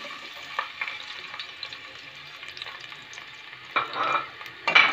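Sliced onions sizzling in hot oil in a metal pot, with a steady hiss and scattered small crackles. A slotted metal spoon stirring them scrapes against the pot twice near the end, louder than the sizzle.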